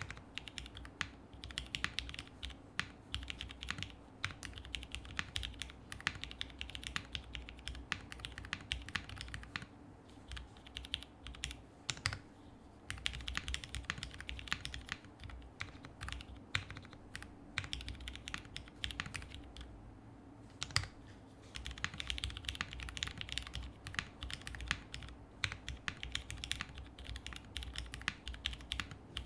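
Typing on a Polaris custom tenkeyless mechanical keyboard fitted with lubed and filmed Cherry HyperGlide Black linear switches, an FR4 half-plate, lubed Zeal stabilizers and CRP R4 keycaps. It is a fast, steady run of keystrokes with a few short pauses.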